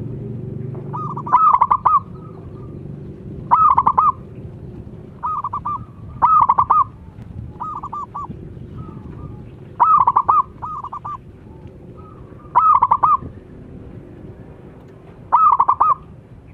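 Zebra dove (perkutut) cooing: a string of short, rolling phrases of rapid stuttering notes, one every one to two seconds, over a low steady background rumble.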